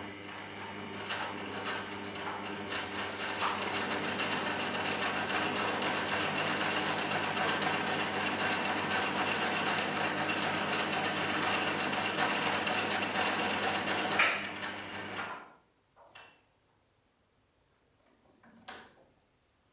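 Electric sewing machine stitching a straight seam through canvas: the motor hum and rapid needle strokes build up over the first few seconds, run steadily, then stop about fifteen seconds in. A couple of small clicks follow as the needle is lowered and the presser foot lifted to turn the fabric at a corner.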